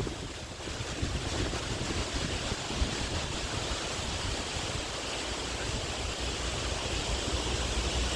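Strong thunderstorm wind with driving rain: a steady rushing hiss, with wind buffeting the microphone as a low rumble.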